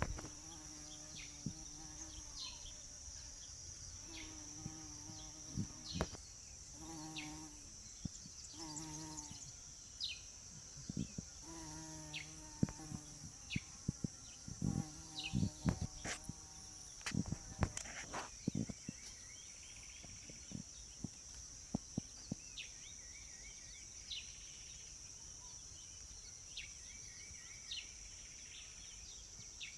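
A bee buzzing in flight, its low hum coming and going in short passes over the first half, over a steady high insect trill. Short bird chirps and a few sharp clicks are scattered through.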